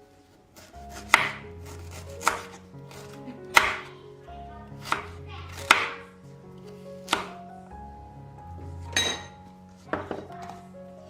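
A knife chopping on a cutting board in single strokes, about nine of them roughly a second apart, over background music.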